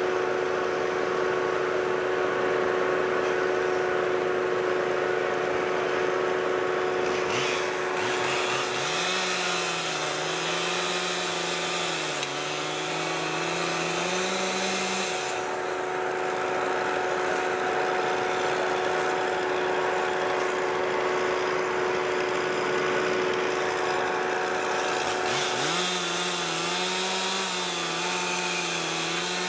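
A firefighter's chainsaw is revved in two long runs about seven seconds apart, its engine note rising and sagging, over the steady drone of the running aerial ladder truck.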